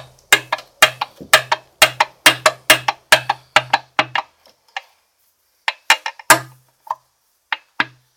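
Sharp knocks on metal engine parts, about two a second for some four seconds, then a few scattered ones. Each knock has a short low ring.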